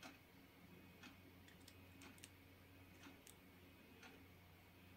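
Near silence: low room hum with a few faint, scattered ticks of multimeter probe tips shifting on battery terminals.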